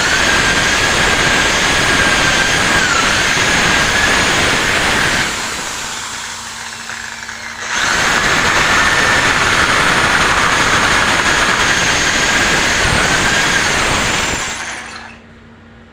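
Power drill running under load in two long runs, its motor whine wavering in pitch; it eases off for a couple of seconds in the middle and stops shortly before the end.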